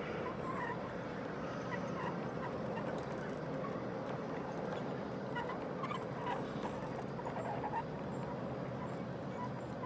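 G scale model freight train of grain hoppers and double-stack container cars rolling past on the track, a steady rumble of wheels on rail. Short bird chirps come through over it.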